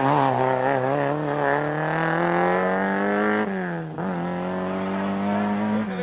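Peugeot 106 rally car's engine revving hard under acceleration. Its pitch climbs for about three and a half seconds, drops sharply at an upshift, then climbs again.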